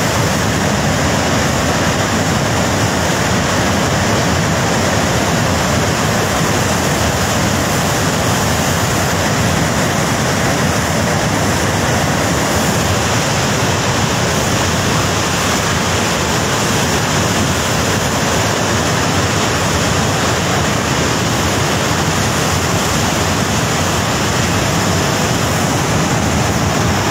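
Flash-flood torrent of muddy, debris-laden water rushing down a river valley: a loud, steady rushing with no break.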